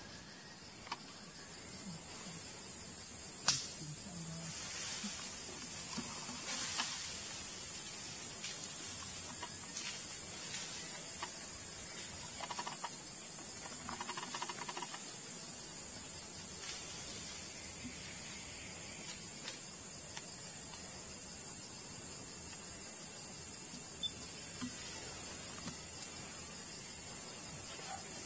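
Cicadas droning in a steady, high-pitched chorus that swells in over the first two seconds and then holds. A few faint clicks sound through it.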